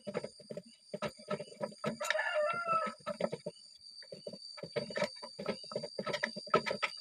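A rooster crows once, about two seconds in, over rapid, uneven clicking and tapping that runs throughout.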